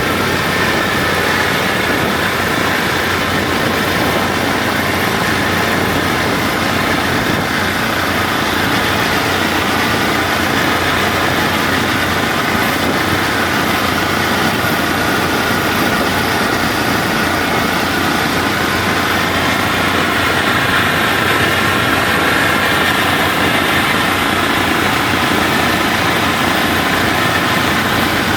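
Kubota WD102PRO combine harvester's engine running steadily as the machine travels along the road, mixed with the engine of the vehicle following it.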